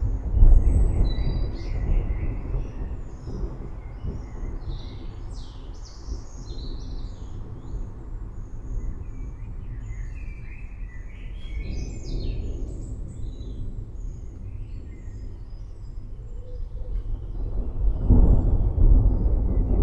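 Thunder rumbling in slow swells, loudest about a second in and again near the end, over steady rain hiss, with birds chirping throughout.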